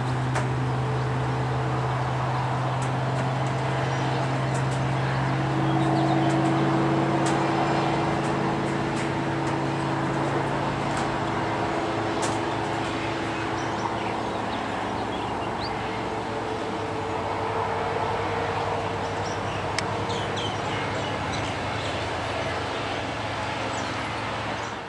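Engine of a tracked rock-drilling rig running steadily with a low hum; a higher tone joins in for several seconds in the middle.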